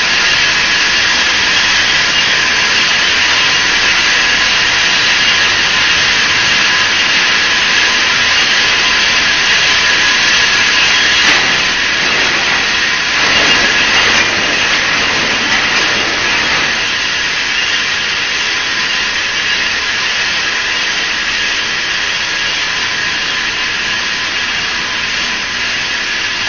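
Hexagonal wire netting machine running: a steady, loud mechanical whir and hiss with a faint steady whine, a little louder for a few seconds near the middle.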